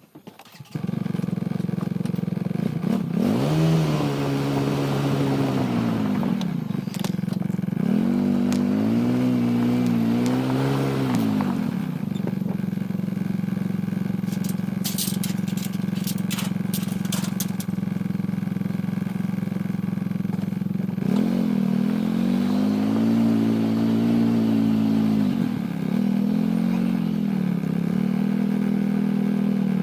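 A motor vehicle's engine starts running abruptly and carries on with a steady drone. Three times it swells in pitch and falls back. A few sharp clicks come in the middle.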